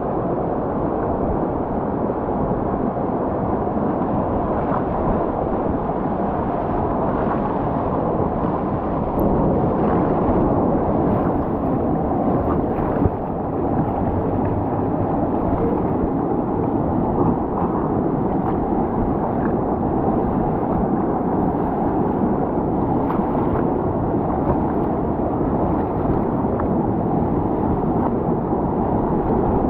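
Water rushing and churning around a raft on a rapids ride, a steady, muffled rushing noise.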